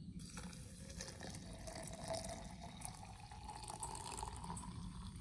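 Hot water poured from a pot into a GSI Glacier Stainless Commuter Javapress travel French press mug onto coffee grounds: a steady pouring splash whose pitch rises as the mug fills.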